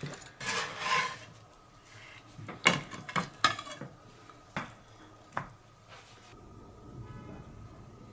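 Kitchenware being handled: a short scrape, then a handful of sharp separate clinks and taps of dishes and utensils, spread over a few seconds.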